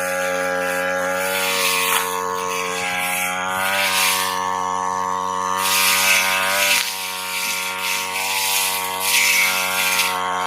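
Brush cutter with a small metal blade running steadily at working speed, with repeated swishing bursts every second or two as the blade cuts through thick Pakistan grass stems. The engine pitch sags a little under load a few times.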